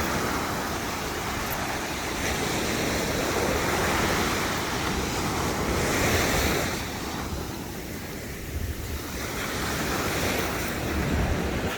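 Pacific Ocean surf washing up the beach, with wind buffeting the phone's microphone. The surf swells a little about six seconds in, then eases off.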